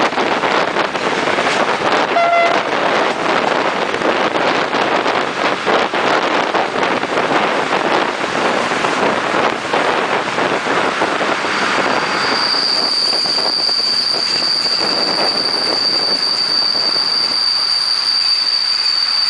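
Wind on the microphone and rolling noise from a regional electric train, heard from an open window, with a brief pitched tone about two seconds in. About twelve seconds in, a steady high-pitched squeal starts and holds while the rushing noise thins: the brakes squealing as the train slows into the station.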